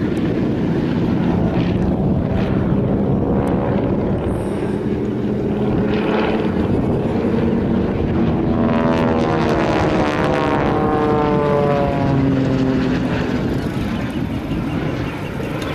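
North American AT-6D Texans' radial engines and propellers droning overhead during an aerobatic display. From about eight to twelve seconds in, the engine tones slide down in pitch as the planes pass by.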